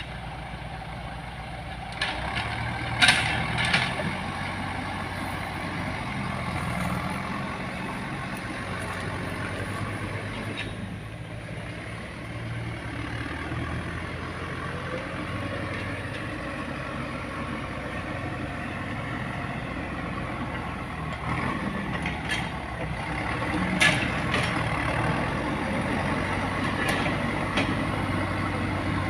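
Heavy diesel engine of road-building machinery running steadily, with a few sharp knocks about three seconds in and again near the end.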